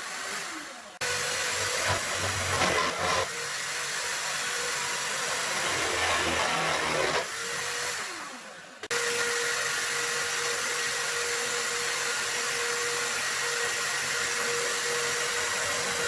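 Electric drill running and boring into wood, a steady whine over noise. It is let off twice, near the start and about halfway through, its pitch falling as it winds down, then starts again abruptly each time.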